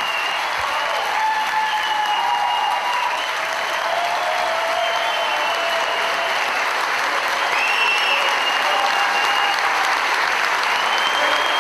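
A large crowd applauding steadily, with cheering and high held shouts or whistles over the clapping.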